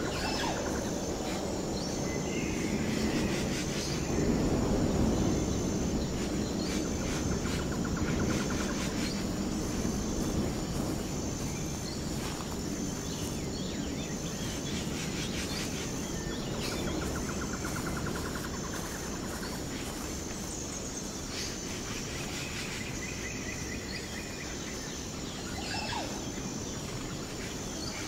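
Outdoor ambience: a steady low rumble with a faint, regular high-pitched pulsing and scattered bird chirps.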